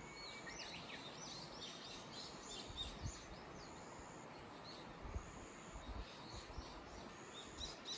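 Small birds chirping and twittering in quick runs, with a thin high whistle-like note repeating every couple of seconds, over a faint steady outdoor hiss. A few soft low thumps come in the middle.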